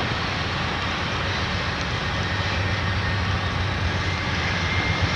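Freight train rolling past at close range: a steady rumble of wheels on rail that grows a little louder near the end.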